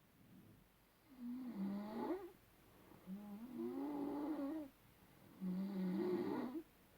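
A person snoring: three long snores, each with a tone that wavers up and down, separated by quiet gaps.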